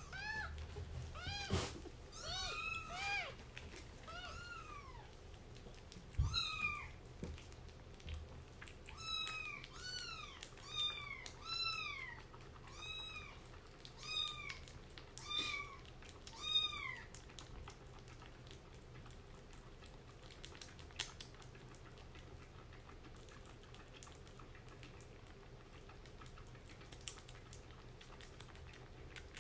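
A kitten mewing over and over: about twenty short, high mews, each rising and then falling in pitch, about one a second, stopping a little past halfway through. A soft knock comes about six seconds in.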